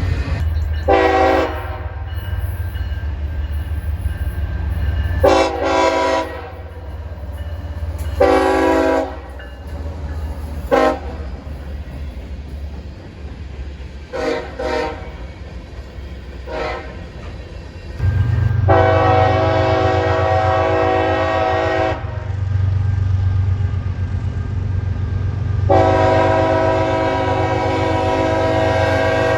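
Diesel locomotive air horn sounding a string of blasts: three short blasts, four quick toots, then two long blasts of about three seconds each. Underneath is a steady low engine rumble that grows louder a little past halfway.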